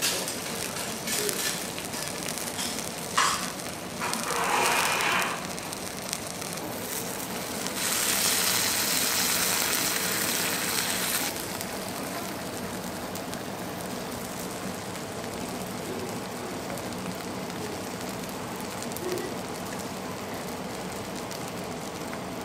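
Food sizzling on a hot griddle: a steady frying hiss that swells louder for about three seconds in the middle, with a sharp click about three seconds in.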